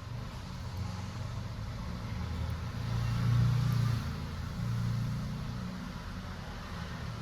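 Low, engine-like rumble of a road vehicle, swelling about three seconds in and again around five seconds.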